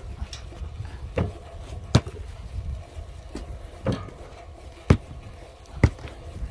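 A series of sharp thuds, roughly one a second at uneven spacing, over a steady low rumble.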